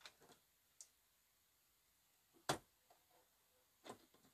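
Small metal turn latches on bathroom access panel doors clicking as they are worked by hand: one sharp click about two and a half seconds in, with fainter clicks at the start and near the end, and near silence between.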